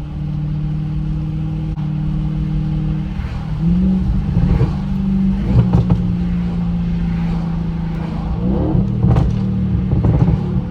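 Audi S8 with a straight-piped exhaust behind the downpipes, running steadily under way; about three and a half seconds in, its note steps up as it accelerates. A few short sharp cracks come through in the second half.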